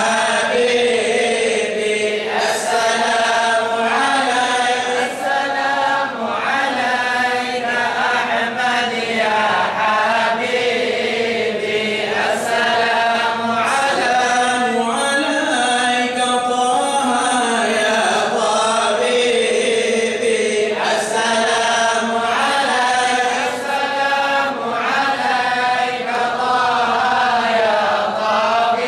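A large group of men chanting devotional verses in praise of the Prophet together, a mawlid recitation, sung continuously in long flowing phrases.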